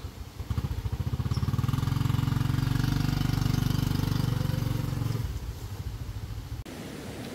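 A vehicle engine running with a fast, even pulse, swelling about a second in, holding for some four seconds, then falling away. Near the end the sound cuts abruptly to a steady hiss.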